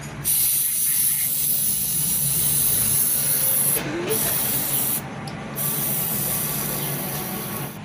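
An aerosol cleaner hisses from a spray can onto a dirty mass air flow sensor in three bursts: a long one of about three and a half seconds, a short one of about a second, then one of about two seconds.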